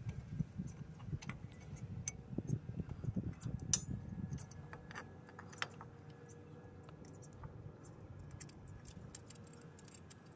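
Light metallic clicks and clinks of a drum brake shoe and its springs being handled and seated against the backing plate during a rear brake shoe replacement. Soft rubbing and handling noise in the first few seconds, then fewer, scattered ticks.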